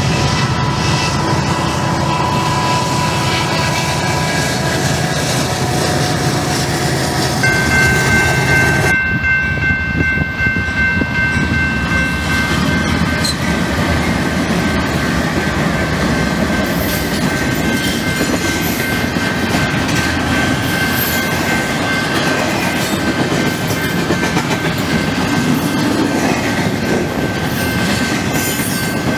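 Freight trains passing. First a loaded coal train rumbles by at a distance; after a cut about nine seconds in, diesel locomotives and a double-stack container train rush through a grade crossing close by, wheels clattering over the rails, with steady high-pitched tones ringing over it.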